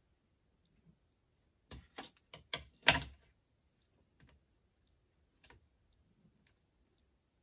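A quick cluster of clicks and taps about two seconds in, then a few faint ticks: hands handling a small paper bow and tools on a cutting mat.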